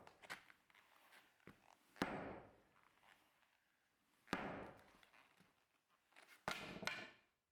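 Three heavy blows of a hand tool on a concrete slab, about two seconds apart, each a sharp hit with a short fading ring.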